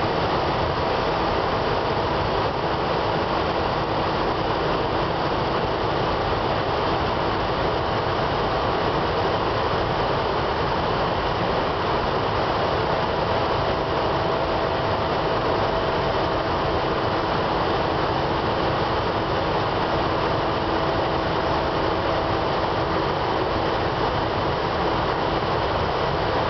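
Steady, even roar of a CFBC boiler's light-oil start-up burner firing in the furnace, together with the rush of boiler air, with a faint steady hum running underneath.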